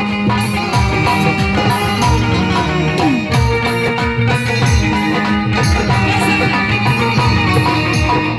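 Loud Indian folk-style music: a held melody over a steady beat of hand drums, whose low strokes glide down in pitch.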